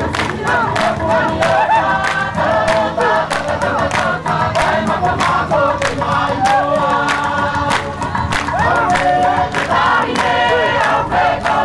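A seated chorus singing a Tongan dance song together, over a steady beat of sharp percussive strikes, about three a second.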